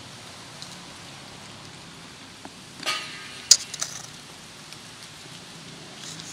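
Handling noise over a steady background hiss: a short scrape just under three seconds in, then a sharp click and a few smaller clicks.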